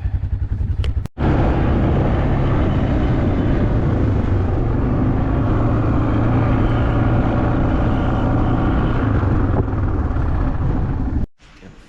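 Four-wheeler engine running as it is ridden, a loud steady drone. It breaks off sharply about a second in, picks up again at once, and cuts off abruptly near the end.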